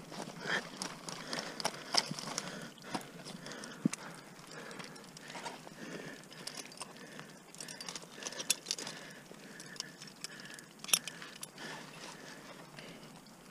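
Ice-climbing gear on waterfall ice: scattered sharp clicks and knocks of crampons and tools against the ice, with clothing rustling in between. A few louder knocks stand out, about two, four, eight and a half and eleven seconds in.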